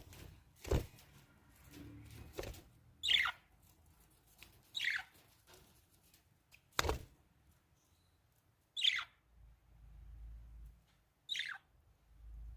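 Budgerigars giving four short chirps a couple of seconds apart, each sliding down in pitch, with a few dull knocks in between.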